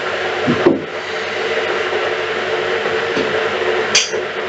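Macaroni frying in a skillet, a steady hiss over a steady hum, while two spatulas stir it. A short scrape of a spatula against the pan comes about four seconds in.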